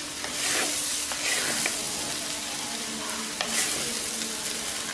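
Rice and vegetables sizzling in a hot clay pot while a flat ladle tosses and scrapes them. There is a steady hiss with a few louder swells as the ladle turns the rice.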